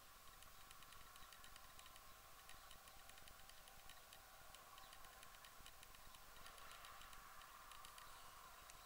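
Near silence: a faint steady hiss with many small, irregular ticks.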